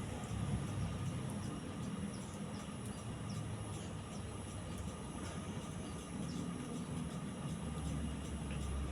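Celestique/Alaska decorative ceiling fan running steadily, a low hum and rush of moving air with a faint steady whine.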